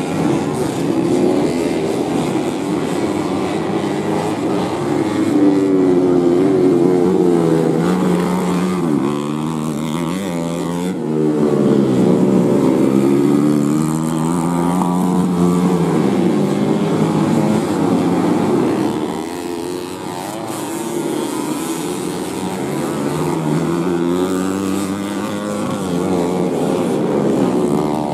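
Several small underbone-engined grasstrack race motorcycles running hard together, their engines revving up and dropping back over and over as the riders accelerate and ease off through the corners and climbs.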